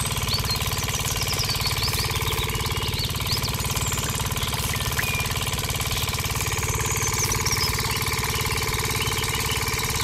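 Small single-cylinder engine running steadily with a fast, even knocking beat, driving a miniature sugarcane roller press by its belt. Birds chirp faintly above it.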